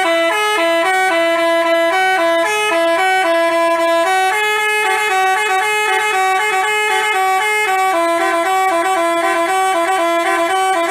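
Basuri telolet bus horn playing a long tune of short stepped notes, loud and unbroken.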